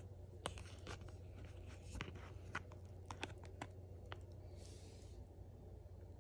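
Faint scattered clicks and scratches from handling takeout containers: fingers on a black plastic sushi tray and a foam food box, with a brief rustle near the end. A low steady hum runs underneath.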